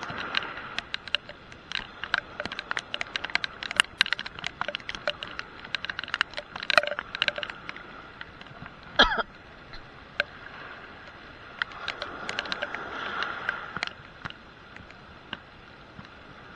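Heavy rain: raindrops tapping irregularly on the camera over a steady hiss of rain, with one brief louder sound about nine seconds in.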